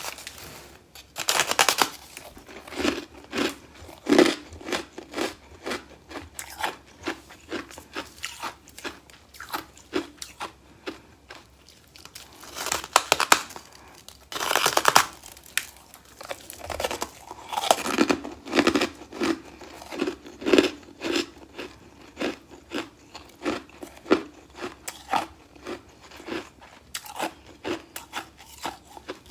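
Close-up eating of a chunk of freezer humidifier frost: hard bites cracking the frost and rapid crunchy chewing, about two or three crunches a second, with a few longer, louder bites, the biggest about halfway through.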